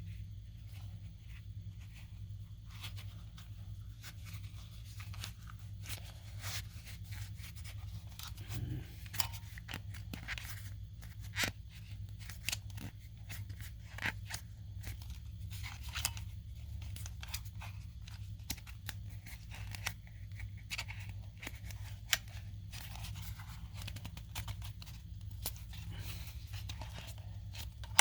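Small, irregular clicks, taps and scrapes of hands handling a plastic RC car body and peeling stickers, over a steady low hum.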